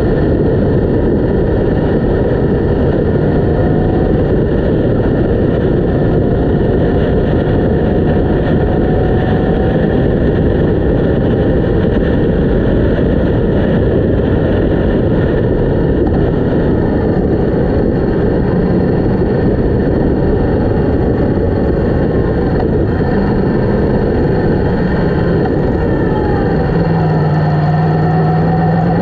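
Wind rushing over a GoPro's microphone on a moving Yamaha MT-10 motorcycle, with the bike's inline-four engine running underneath. Near the end the engine note comes up and rises in pitch.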